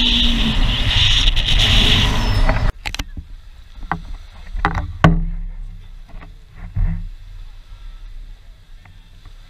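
Speedboat under way on open water: a loud, steady rush of engine, wind and water that cuts off suddenly after nearly three seconds, leaving a much quieter background with a few sharp knocks and thuds.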